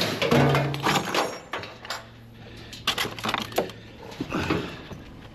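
Small pieces of scrap metal and hardware clinking and clattering as they are handled and sorted, a run of irregular sharp knocks and rattles.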